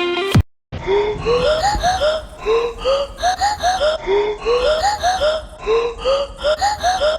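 Background electronic music in a bass-less break: short rising breathy vocal chops repeating in a steady rhythm, after a brief cut-out at the start.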